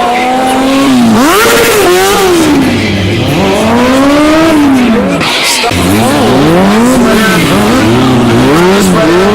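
Small single-cylinder 125 cc stunt motorcycles (Honda Grom and Kawasaki Z125) revving up and down repeatedly as they are ridden through tricks. The revs swing in long sweeps at first, then in quicker blips, about two a second, in the second half.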